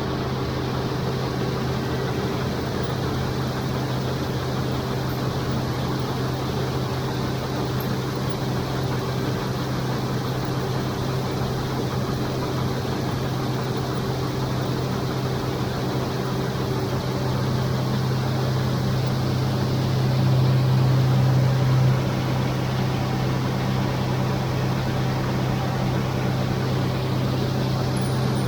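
An engine running at a steady speed with a low drone, swelling a little louder about twenty seconds in.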